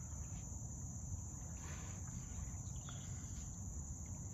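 Steady high-pitched drone of insects in the marsh, over a low rumble of wind on the microphone.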